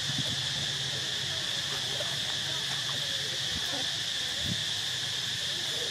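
Insect chorus: a steady, high-pitched drone that does not change.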